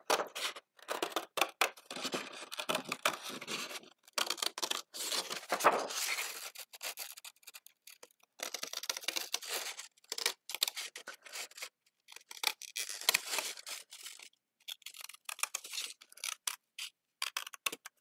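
Small scissors cutting around a circle in white cardstock: a run of irregular crisp snips with the sheet rustling, broken by a couple of short pauses.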